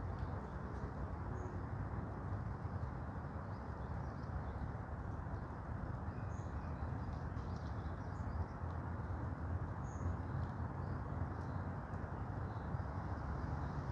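Forest ambience: a steady low rumble under a few faint, brief high bird chirps, one about a second and a half in, one about six seconds in and one about ten seconds in.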